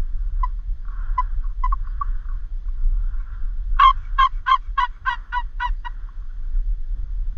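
Turkey calling: a few scattered clucks, then a run of about eight evenly spaced yelps a little past halfway. Under it, a steady low rumble of wind on the microphone.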